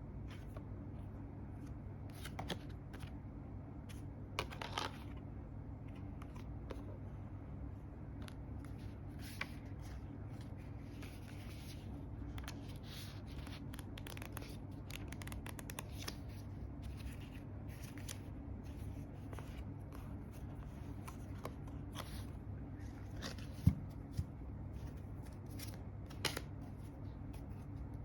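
A tarot deck and its box being handled: cards rustling, sliding and clicking against each other in many small irregular taps, with one sharper knock a little before the end. A steady low hum sits underneath.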